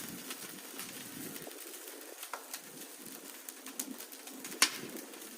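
Wood fire crackling under a cooking pot, with scattered small clicks and a sharp pop near the end.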